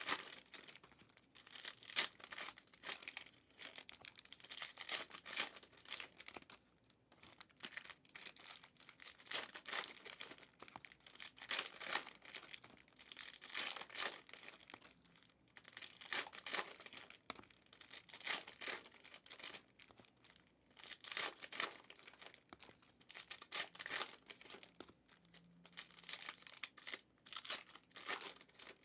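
Panini Certified football card pack wrappers being torn open and crinkled by hand, in a long run of quick rips and rustles with short pauses between them.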